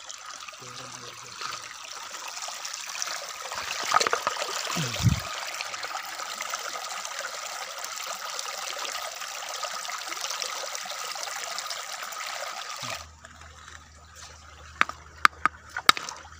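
Shallow river water running over stones, a steady rushing that cuts off suddenly about 13 seconds in. A few sharp clicks follow near the end.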